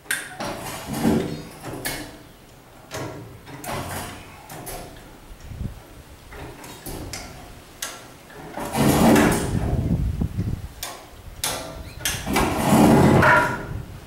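Chain rigging being worked to lift and turn a heavy steel welding table: irregular metallic rattling and clanking, with two longer, louder stretches in the second half.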